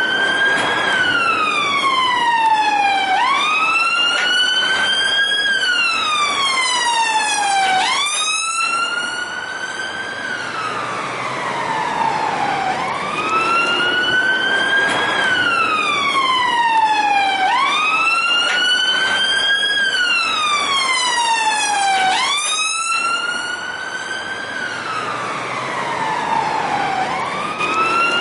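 Police siren in its wail mode: a single tone that climbs quickly, then glides slowly up and back down, repeating about every five seconds, roughly six cycles in all.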